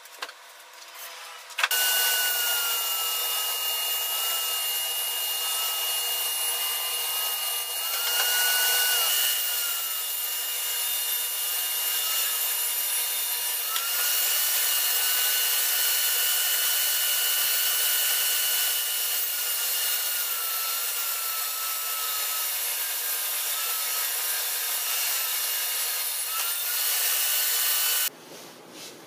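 Table saw running with a steady high-pitched whine, its pitch dipping again and again as the blade cuts through a board fed by hand. It starts up about two seconds in and stops suddenly near the end.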